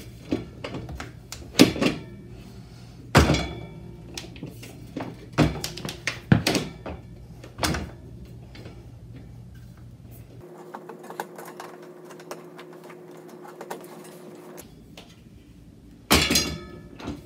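Black metal Regalo baby safety gate knocking and clanking in its door-frame mounts as it is handled and adjusted: a series of separate sharp thunks, then a louder rattling clank near the end as the gate is moved by its top rail.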